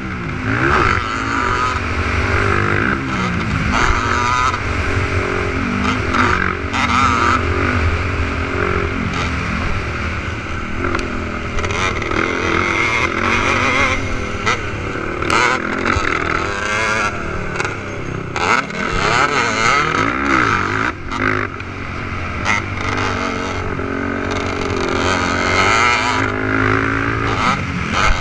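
Several 450-class race quad engines revving hard and shifting around a motocross track, their pitches rising and falling and overlapping as the quads accelerate and back off.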